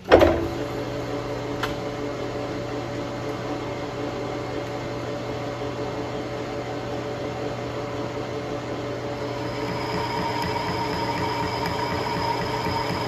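Metal lathe starting up with a sudden clunk, then running steadily with a hum of its motor and gearing while a boring bar bores out a shaft coupler held in a four-jaw chuck. About nine seconds in the sound grows a little louder and a higher whine joins in.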